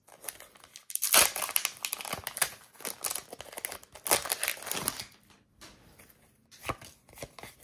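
A foil Pokémon TCG booster pack being crinkled and torn open by hand, in dense crackling bursts from about a second in until about five seconds, then a few lighter rustles and clicks.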